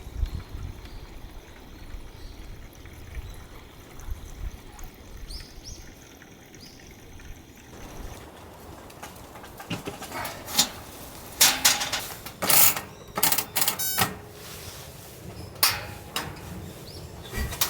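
Low wind rumble for the first several seconds, then a run of handling noises: knocks, clicks and rustles from camping gear being moved. About 13 seconds in there is a quick rattling run.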